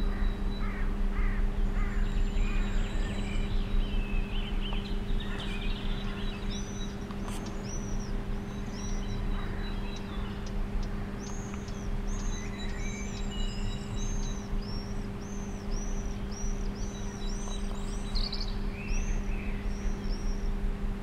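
Common swifts calling with high, thin screams, a fast run of short repeated calls through the second half, over a steady low hum and rumble.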